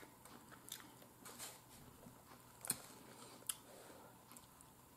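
Faint eating sounds: soft mouth clicks and smacks of chewing, with a fork picking at food, and two sharper clicks a little after the middle.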